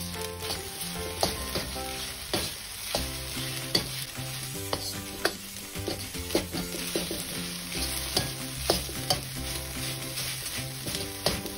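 Egg fried rice sizzling in a wok while a metal ladle stirs and scrapes through it, knocking against the pan with sharp clicks about once a second.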